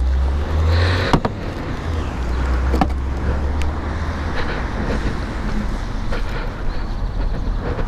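Steady low outdoor rumble with a few small sharp clicks about one, three and three and a half seconds in.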